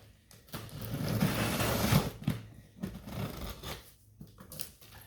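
Packaging being handled as a cardboard box is opened: a loud rustling rush for about a second and a half, followed by scattered light knocks and taps.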